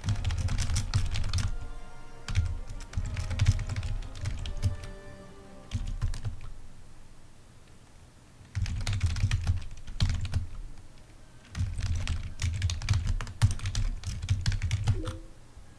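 Typing on a computer keyboard: fast runs of keystrokes in several bursts, with short pauses between them.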